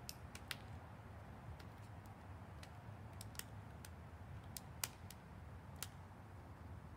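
Scattered light, sharp clicks and taps, about a dozen, as small objects are handled on a wooden bench top, one louder tap about two-thirds of the way in, over a steady low rumble of outdoor background.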